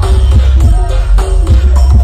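Very loud music played through a huge 'sound horeg' street sound system: heavy bass under a melodic line, with drum strikes keeping a steady beat.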